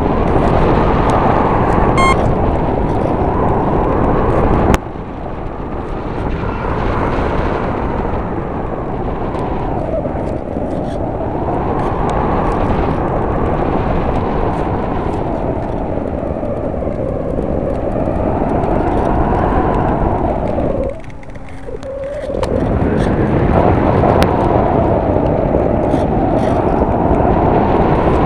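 Rushing air and wind buffeting the onboard camera's microphone on an Easy Star RC plane in flight in strong wind, a loud rush that swells and eases every few seconds. It steps down suddenly about five seconds in and drops away briefly about three-quarters of the way through.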